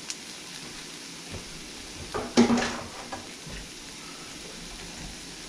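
Diced onion, red pepper, celery and garlic sautéing in a nonstick wok: a steady soft sizzle, with one brief louder knock about two seconds in.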